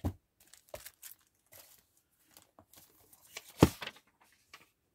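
Purchases and their packaging being handled on a desk: scattered short rustles and light taps, with one louder knock about three and a half seconds in as something is set down.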